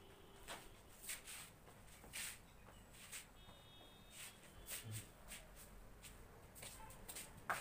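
Faint, scattered rustling of cotton trousers and soft scuffs of rubber flip-flops on a concrete floor as a person shifts and turns, with one sharper click near the end.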